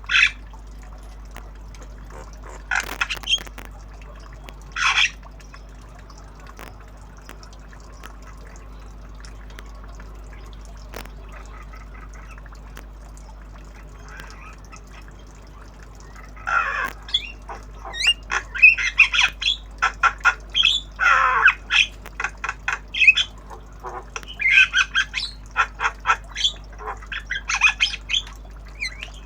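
Javan myna calling: a few single harsh squawks near the start, then from about halfway a long run of rapid, harsh chattering calls.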